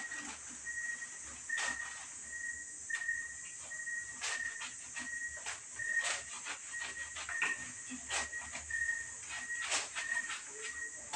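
Clothes being hand-washed in a plastic bucket of water: irregular splashes and squelches of wet fabric being rubbed and wrung. Under them runs a steady high hiss and a short high chirp repeating two or three times a second.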